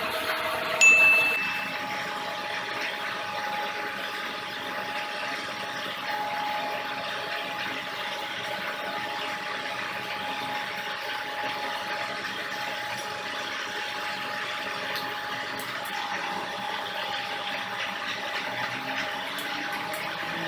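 An electric motor driving two 15 kW generators through V-belts runs with a steady hum and whine. About a second in there is a sharp metallic ding that rings briefly, and just after it the whine settles at a higher pitch.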